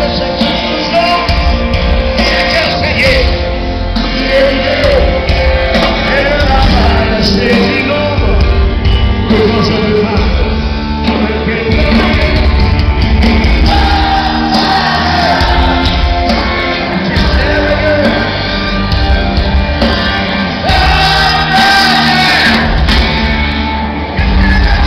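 Live rock band playing over a stadium sound system, with singing, heard from within the crowd.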